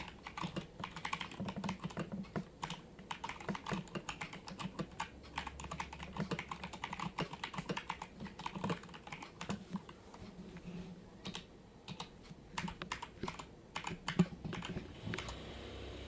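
Typing on a Keychron K2 mechanical keyboard with Gateron brown switches: a fast, irregular run of soft keystrokes. The switches are tactile, without the click of blue switches.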